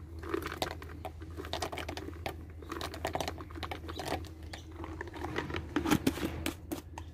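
Almonds and cashews rattling and clicking in a clear jar as they are shaken out onto a bowl of porridge: a dense, irregular run of quick clicks, busiest near the end, over a steady low hum.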